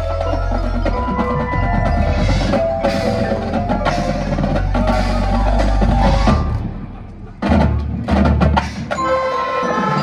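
High school marching band playing, with front-ensemble mallet percussion ringing over the winds and drums. The music thins out and drops about six and a half seconds in, then returns with a string of loud accented hits.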